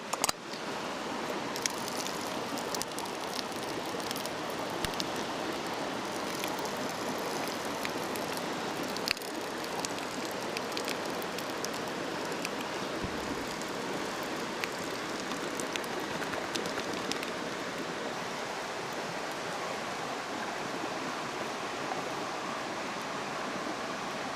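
Bacon frying in an iron pan over a campfire: a steady sizzling hiss with scattered small pops and one sharper crack about nine seconds in.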